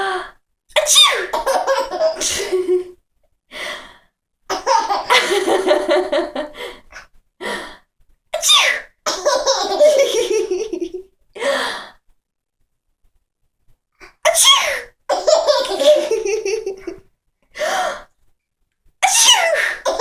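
A woman sneezing over and over, each sneeze set off in a short sharp burst and answered by a baby's belly laughs and gasps. There is a brief lull about two thirds of the way through.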